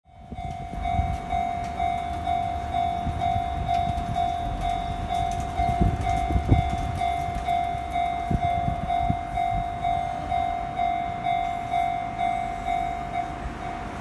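Japanese railway level-crossing warning bell ringing, an electronic clang repeating about twice a second, which stops near the end once the barriers are down. Low rumbling runs underneath, with a thump about six and a half seconds in.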